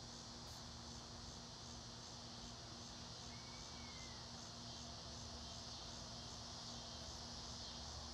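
Quiet outdoor background: a steady high hiss with a faint low hum under it, and one brief faint whistle a little over three seconds in.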